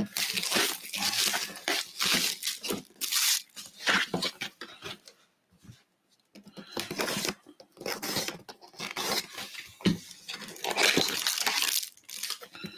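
Plastic shrink-wrap being slit and torn off a cardboard box of trading card packs, and the box flaps pulled open, with crinkling cellophane in irregular bursts and a short pause about halfway through.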